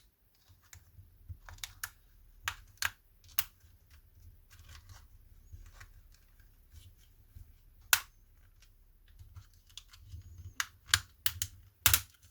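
Irregular sharp plastic clicks and taps from a PlayStation 5 DualSense controller being handled and worked on, with the loudest clicks about eight seconds in and again near the end.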